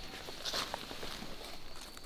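Light rustles and crunches outdoors, the loudest a couple about half a second in, over a faint steady high-pitched tone.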